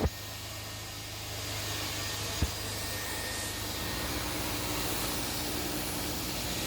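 Carpet extractor's vacuum motor running steadily, sucking water from the soaked car carpet, with one sharp knock about two and a half seconds in.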